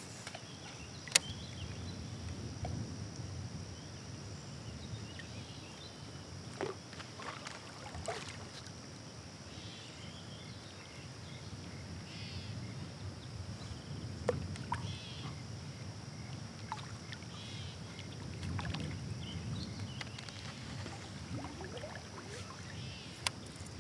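A sit-on-top kayak under way: paddle and water noise, with a few sharp knocks and clicks on the plastic hull and gear, the loudest about a second in, over a steady high drone.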